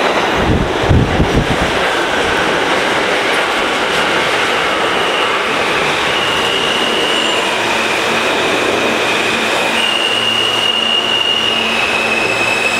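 R160A New York City subway train pulling into an underground station past the platform, with a steady rumble of wheels on rail and a few low thumps about a second in. High whining and squealing tones come in about five seconds in and shift pitch several times as the train slows.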